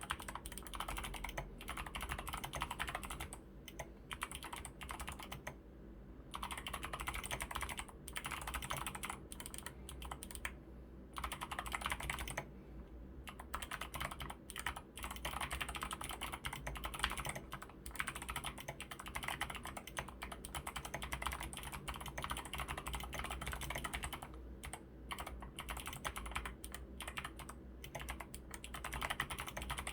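Mechanical keyboard typing on lubed clicky Kailh Box Pink switches with tall SA keycaps: a continuous patter of keystrokes, each with a crisp click, broken by brief pauses a few times.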